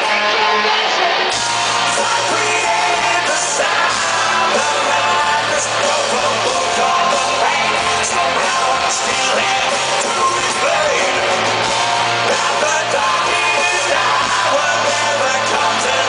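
Rock band playing live: a singer over loud electric guitars and drums, heard from within the crowd at a concert.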